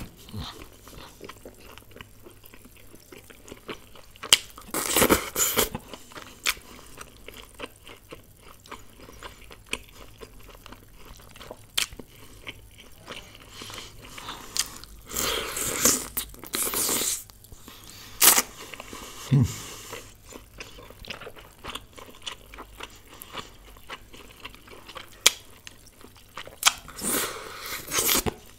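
Close-miked chewing of pieces of methi malai chicken, with many small wet mouth clicks. There are louder bursts of eating sound about 4 to 6 seconds in, around 15 to 17 seconds and near the end.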